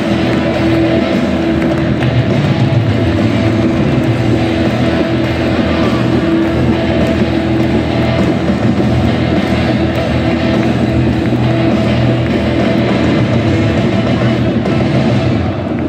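Rock music with guitars played over a stadium's PA, with the steady noise of a large football crowd filling the stands.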